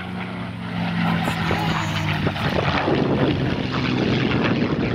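Airplane flying low overhead: a steady low engine hum swells, and about two seconds in gives way to a loud, rough roar as it passes.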